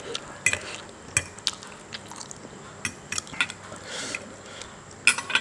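Utensils clinking and knocking against a dish in about a dozen irregular short strikes, with a quick cluster near the end.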